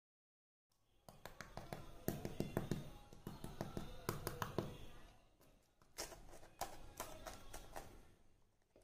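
Crisp deep-fried moong dal kachori crust crackling and cracking as fingers press into it and break it open, a dense run of small sharp crunches with a brief lull about halfway through.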